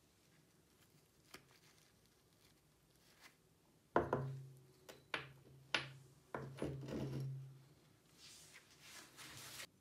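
Rusty hacksaw handle parts (metal ferrule, fittings and the wooden grip) knocked and set down on a wooden workbench: a run of sharp knocks and clinks starting about four seconds in, some with a short low ring, followed by a brief scraping rustle near the end.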